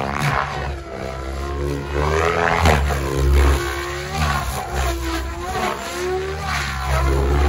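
Electric Goblin 700 RC helicopter flying aerobatics. Its rotor and drivetrain run with a heavy low drone, and a whine that swoops up and down in pitch again and again as the load and head speed change.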